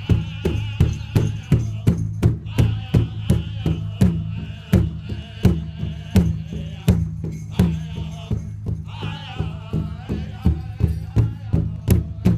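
Powwow drum beaten in a steady, fast beat of about three strokes a second, with a group of singers' high, wavering voices over it: the song for a fancy dance.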